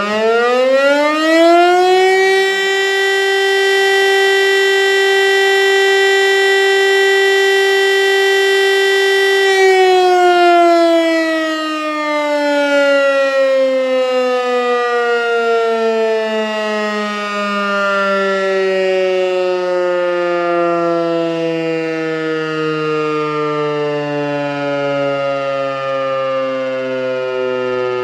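East German DS977 electric motor siren sounding during a siren test, heard close to its rotor. It winds up to full pitch in about two seconds and holds one steady tone for about seven seconds. It then winds down, the pitch falling slowly as the rotor coasts to a stop.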